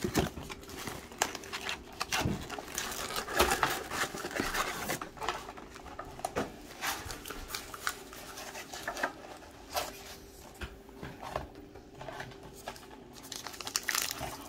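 Trading-card blaster box and its packs being handled and opened by hand, with plastic wrapper crinkling and a pack being torn open, in irregular rustles and crackles.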